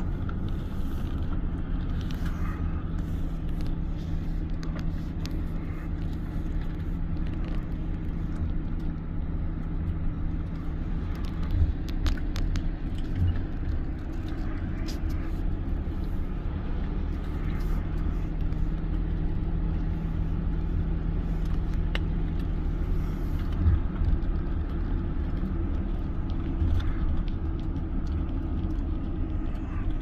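Engine hum and low road rumble inside the cabin of a car driving along, with a few brief knocks from bumps in the road.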